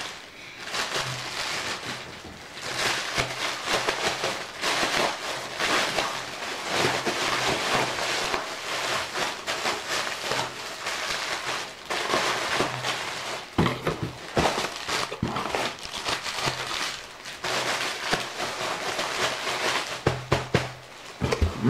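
Plastic packaging and bubble wrap crinkling and rustling as it is handled, with a few sharper clicks about two-thirds of the way through.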